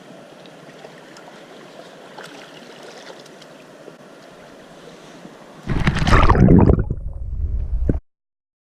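Steady rushing of river water, then about six seconds in a much louder, deep rushing noise for about two seconds that cuts off suddenly.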